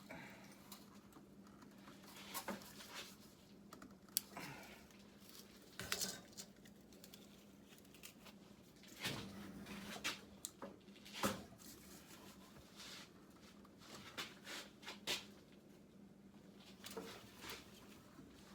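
Small metal parts and tools being handled by hand: scattered light clinks, clicks and rustles at irregular intervals, with a few sharper knocks about four, six and eleven seconds in, over a steady low hum.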